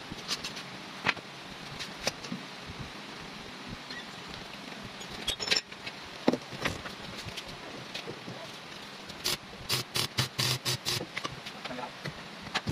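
Scattered metallic clicks and knocks from handling a sidecar wheel on its new hub, with a quick run of about a dozen clicks roughly three quarters of the way through.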